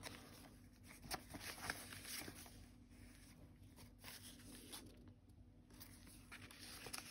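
Faint rustling and soft crackles of paper as the pages of a handmade paper journal are turned and tucked cards are handled.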